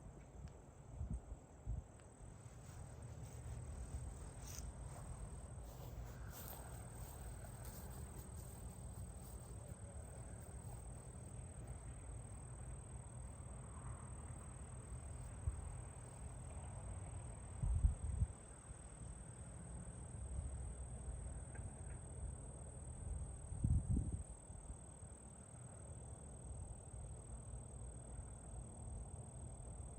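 Insects chirring in a steady high drone, with a low rumble beneath and two brief low thumps, about 18 and 24 seconds in.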